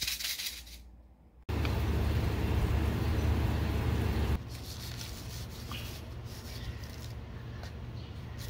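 A seed packet rustles briefly as it is handled. After a cut, a loud steady low rumble runs for about three seconds and stops abruptly, leaving a quieter background with a few faint high chirps and small ticks as seeds are poured from the packet into a pot of soil.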